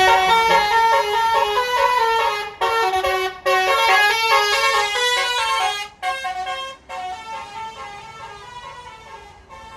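Bus telolet horn of the Basuri type, a multi-tone musical air horn, playing a fast tune of short stepped notes. It is loud for about six seconds with two brief breaks, then goes on more quietly.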